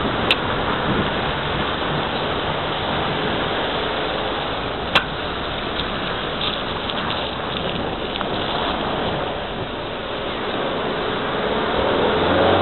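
Steady rushing wind noise on the microphone and road noise while moving along a town street, with one sharp click about five seconds in.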